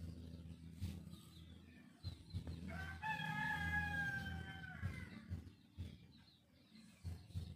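A rooster crowing once, a single call of about two seconds, falling slightly in pitch, starting about three seconds in. Under it are a low steady hum and light scraping clicks of a knife blade on fatwood.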